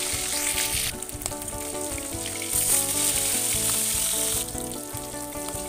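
Fish steaks sizzling as they shallow-fry in hot mustard oil in a wok, a dense crackling hiss that swells and dips.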